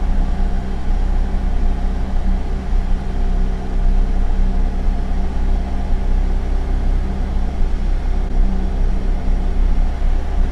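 Single-engine light aircraft's piston engine and propeller running steadily in flight: an even, unchanging drone heard inside the cockpit.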